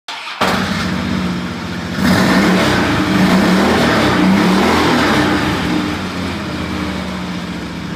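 An engine revving and running, louder from about two seconds in and easing off gradually toward the end.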